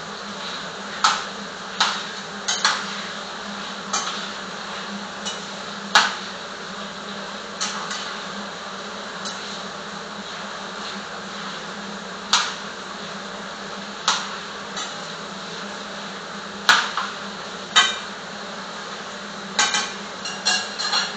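Metal cooking utensils knocking and clinking against pots and pans in scattered sharp strikes, some in quick pairs and a cluster near the end, over a steady hiss.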